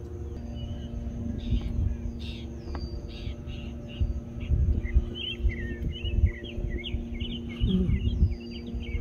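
Birds calling: a few harsh notes, then a quick run of short high chirps that grows busier from about four seconds in. Under them are low, uneven rumbles like wind or handling on the microphone, and a faint steady hum.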